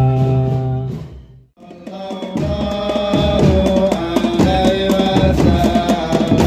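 A group of voices holds a sung "la la" note that fades out about a second and a half in. After a brief gap, music with drums and other percussion under a melody starts up and keeps a steady beat.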